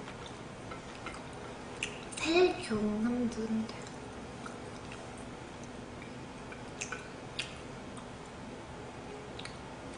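Quiet eating at a table: a few faint, sharp clicks of chopsticks against a plate and soft chewing.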